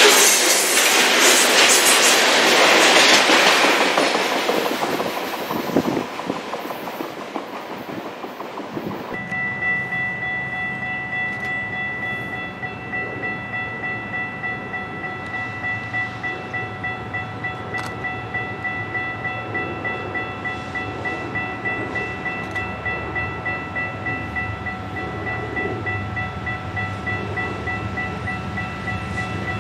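Freight train tank cars rolling past with wheel clatter, fading away over the first several seconds. Then Canadian Pacific diesel locomotives approach with a low engine rumble, under a steady high-pitched ringing that pulses about twice a second.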